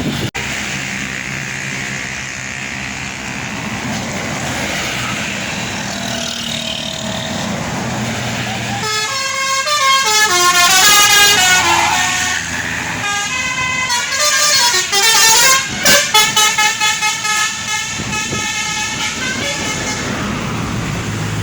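A large bus's engine running, then its multi-tone telolet horn plays a melody of bright, stepping notes for about ten seconds, breaking into rapid short toots near the end.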